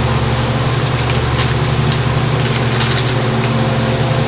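Microwave oven running with its steady electrical hum and fan noise, with a few faint crackles from the crushed aluminium cans inside about a second in and again near three seconds.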